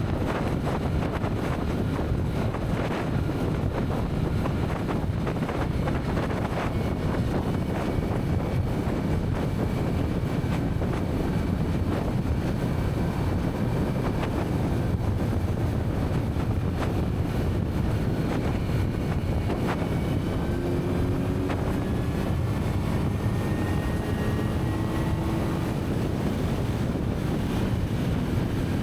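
Wind rushing over the microphone while riding a Kawasaki Z900 motorcycle, its engine running steadily underneath.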